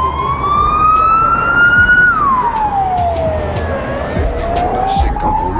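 A wailing siren: one slow rise in pitch, a quicker fall about two seconds in, then a slow rise again.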